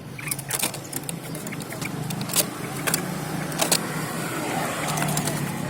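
A low, steady engine hum that swells slightly in the second half, with scattered sharp clicks and one short bird chirp right at the start.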